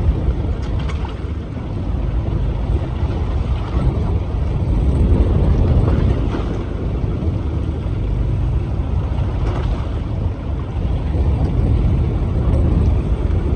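Fishing boat's engine running with a steady low rumble, mixed with wind and sea noise.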